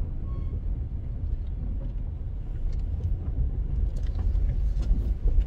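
Steady low rumble of a car's engine and tyres on the road, heard from inside the car as it drives along slowly.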